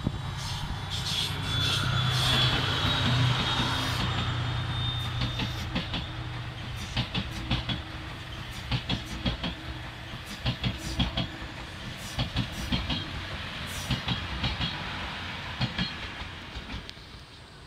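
The Seven Stars in Kyushu cruise train passing close by, hauled by a DF200-7000 diesel-electric locomotive: the locomotive's engine hum is loudest in the first few seconds, then the coaches' wheels click steadily over the rail joints, fading near the end.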